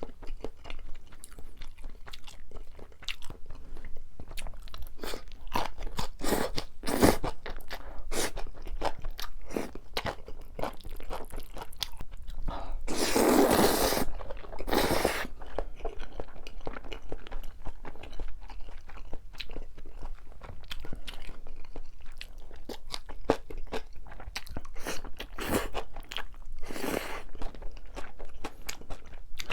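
Close-miked eating sounds from instant black-bean noodles and green onion kimchi: a steady run of chewing, crunching and mouth smacks. About halfway through there is a louder, longer rush of noise.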